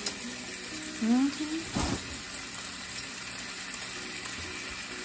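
Bacon and potatoes sizzling steadily in hot oil on the stovetop. A short rising hum of a voice comes about a second in, and a single knock just before two seconds.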